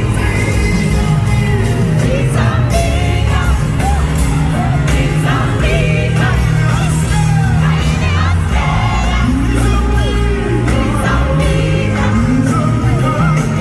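Live worship music: a wavering sung melody over a heavy, steady bass.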